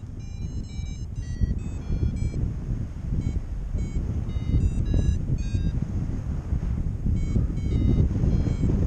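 A paragliding variometer beeping in short high tones that hop up and down in pitch, the beep that signals rising air, over a steady rush of wind on the microphone.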